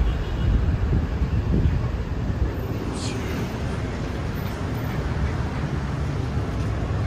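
City street noise: a steady rumble of traffic with wind on the microphone.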